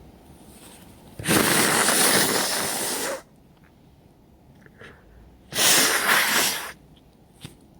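Two hard nose blows through a nose congested by a cold: a steady blast of about two seconds starting a second in, and a shorter one about five and a half seconds in.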